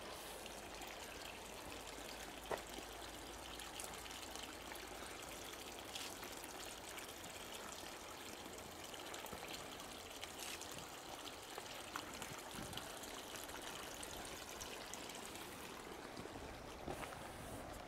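Small creek trickling steadily over its bed, with a few brief sharp ticks now and then.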